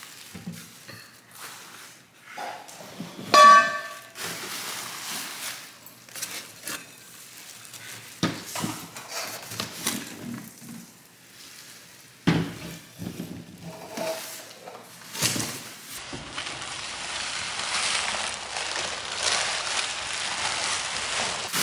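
Metal wheel parts being handled, with scattered light knocks and clinks and one loud ringing clang about three and a half seconds in. A steady hiss takes over for the last five seconds or so.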